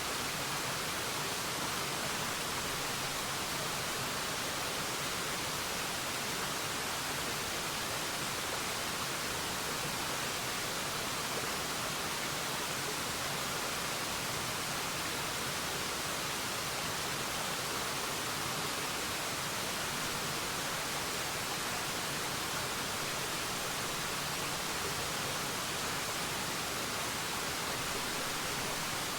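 Waterfall: a steady, even rush of falling water, mostly hiss, with no change in level.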